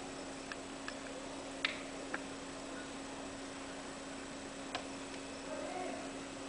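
Faint steady background hiss and low hum, with about five sharp clicks scattered through it, the loudest under two seconds in. These are likely camcorder handling clicks as the camera pans and zooms.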